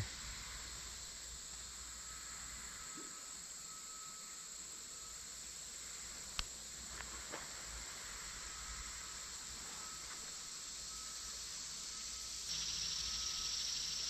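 Insects shrilling in a steady, faint chorus, with a fainter repeating short note underneath; it steps up in loudness near the end. A single sharp click sounds about six seconds in.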